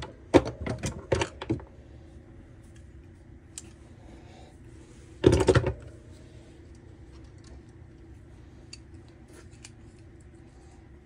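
Small metal parts and hand tools handled at a workbench: a run of sharp clicks and rattles over the first second and a half, a short dense rattle about five seconds in, then a few faint ticks.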